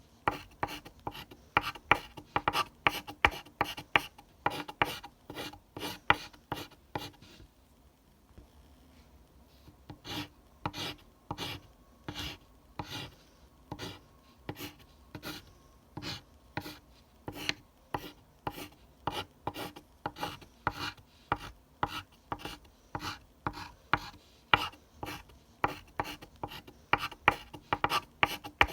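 Pencil scratching on paper in short repeated strokes, about two a second, with a pause of a couple of seconds about eight seconds in.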